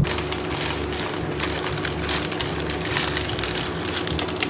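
Plastic instant-noodle packet crinkling as it is handled, a dense run of crackles, with a faint steady hum underneath.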